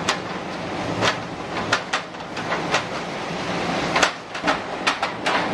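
Steady roar of hurricane wind with a series of irregular sharp knocks and bangs, the loudest about four seconds in.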